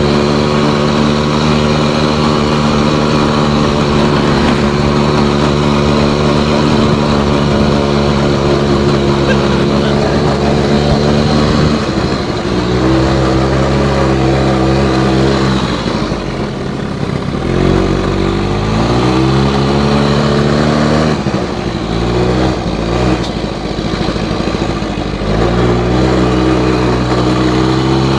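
ATV engine running steadily, then from about halfway through its pitch drops and climbs several times as the throttle is eased and opened, before settling back to a steady pitch near the end.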